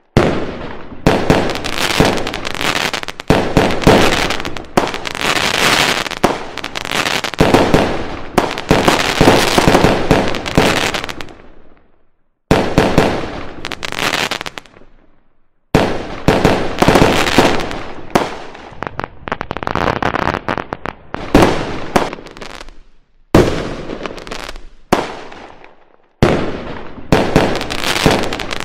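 Fireworks going off in a dense barrage of sharp bangs and crackling. The barrage is broken by a few brief, sudden silences, where the sound cuts out and starts again.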